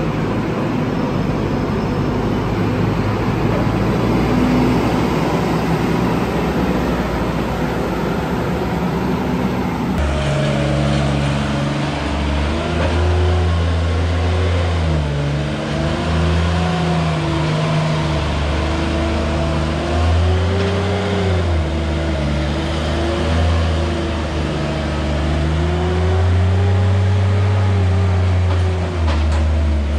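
Diesel engine of a JCB wheel loader running steadily. About a third of the way in, a compact articulated loader's diesel engine takes over, its revs rising and falling as it works.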